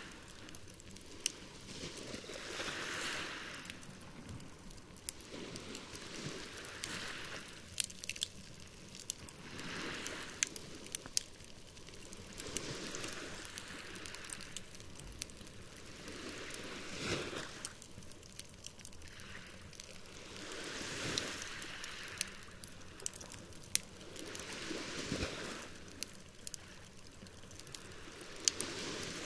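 Campfire crackling with scattered sharp pops, over small waves washing onto the shore in swells about every three to four seconds.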